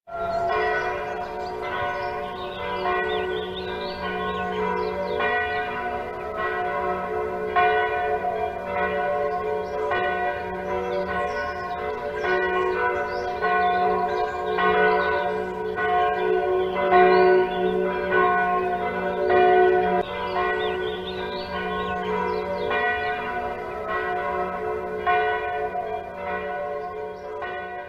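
Church bells ringing, many overlapping strikes with their tones ringing on, dying away at the end.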